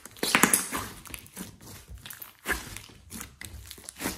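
Slime being squished and worked by hand, making irregular crackly clicks and pops, densest in the first second.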